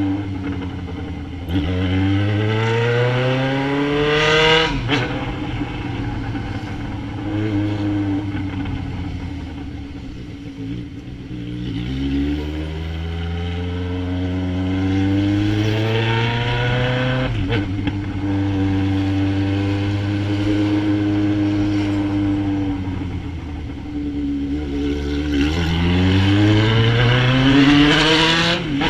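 Yamaha XJ6's 600 cc inline-four engine through an Atalla 4-into-1 aftermarket exhaust, accelerating with rising revs. After a sharp break the revs fall away. The revs then climb and hold steady for several seconds, drop, and climb again near the end.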